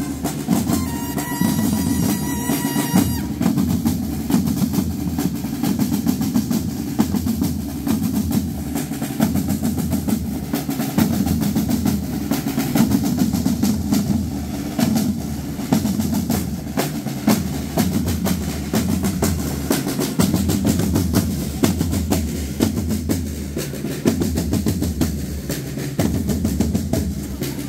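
Marching drums playing continuously, a snare-drum roll over bass-drum beats.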